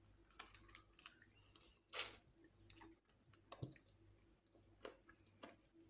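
Faint chewing of fried chicken, with small wet mouth smacks and clicks scattered throughout; the loudest smack comes about two seconds in.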